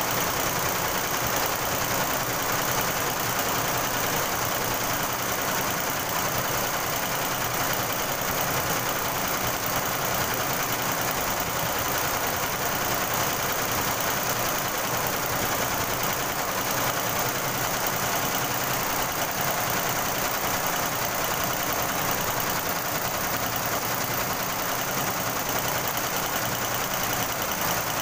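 Multi-head computerized embroidery machine stitching: a steady, continuous mechanical clatter of the needle heads at work.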